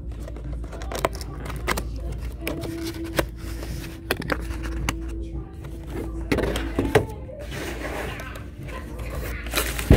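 Cardboard retail box being opened and unpacked: flaps and card inserts rustling and scraping, with scattered knocks and taps against the table. A steady low hum runs underneath.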